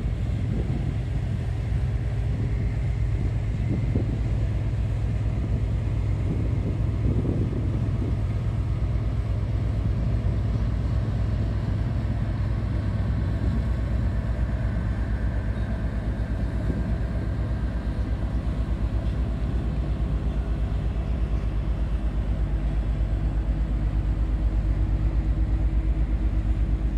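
Diesel engine of a river motor ship running with a steady low throb and a fine regular pulse, growing a little louder near the end.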